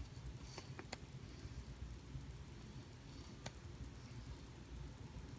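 Paper pages of a coloring book being turned by hand: faint paper rustling with a few soft ticks, three close together about a second in and one more past three seconds.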